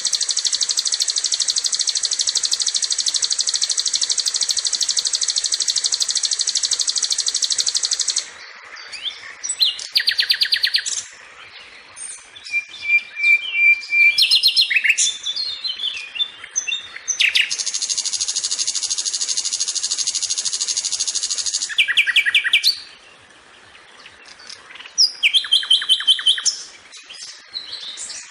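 A sikatan (flycatcher) singing a varied, chattering song: long unbroken buzzy trills lasting several seconds, twice, alternating with bursts of short chirps, rapid runs of repeated notes and a briefly held whistle.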